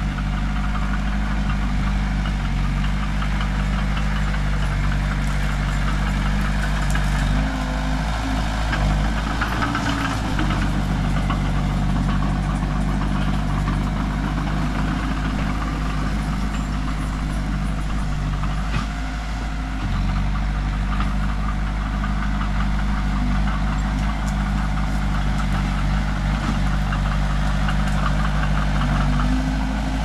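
Diesel engine of an old tracked excavator running steadily as it digs, with a wavering note around eight seconds in and a brief dip about two-thirds of the way through.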